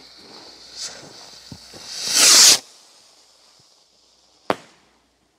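Firework rocket's fuse hissing, then the rocket launching with a loud whoosh a little after two seconds, its hiss fading as it climbs. A single sharp crack near the end, the rocket bursting.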